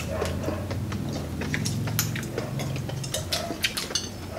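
Spoons and forks clicking and scraping on ceramic plates as people eat, in scattered small taps, over a low steady hum that fades after about three seconds.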